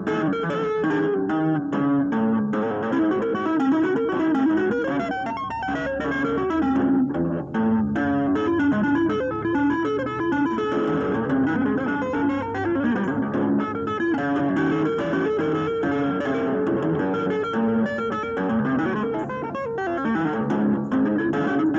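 Electric guitar played with two-handed tapping on the fretboard: a continuous stream of fast, neoclassical-style note runs.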